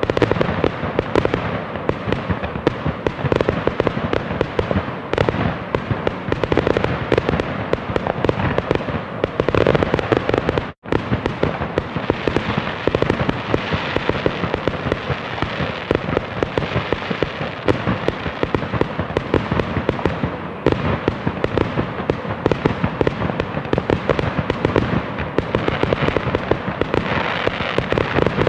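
Fireworks display: a dense, continuous barrage of bangs and crackling, with a momentary cut to silence about eleven seconds in.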